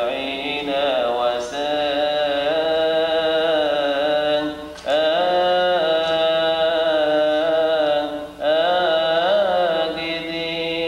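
Coptic liturgical chant: long, melismatic sung lines held and ornamented in pitch, breaking off briefly twice, a little before halfway and about three quarters of the way through.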